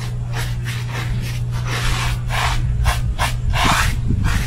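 Paintbrush scrubbing concrete adhesive onto a wet, rough concrete parging patch, a run of short scratchy strokes about three a second. A steady low hum runs underneath.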